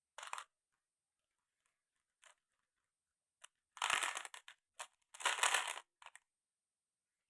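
Marbles running down a wooden marble run: single clacks, then two short rattling rolls about midway, with a few more clicks.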